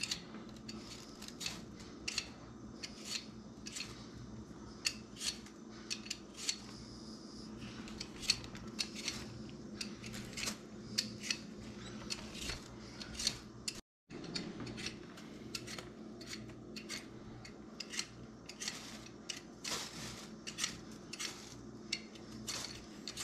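Handheld vegetable peeler scraping the skin off a potato in short, irregular strokes, over a low steady hum.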